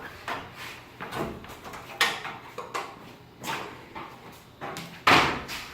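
Garage door torsion spring being wound with steel winding bars: a series of irregular clicks and knocks as the bars are worked in the winding cone and the spring is turned. The loudest knock comes about five seconds in.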